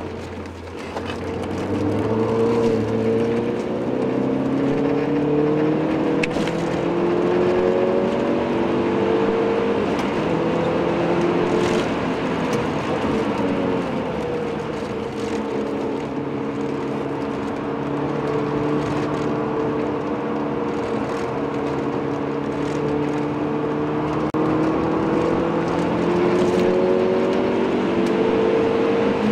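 Saab 9000's engine heard from inside the cabin while it is driven hard on a race track. It revs up and shifts through the gears in the first several seconds, eases off briefly about halfway, then pulls steadily, with tyre and wind noise underneath.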